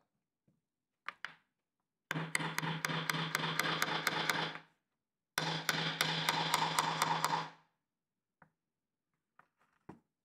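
Diagonal cutting pliers used as a hammer, tapping a thin nail into a small block of wood: two quick runs of light knocks, about five a second, each lasting about two seconds with a short pause between.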